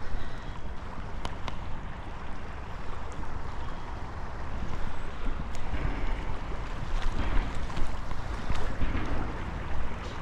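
Steady rushing noise of wind buffeting the microphone over flowing river water, with a few faint clicks.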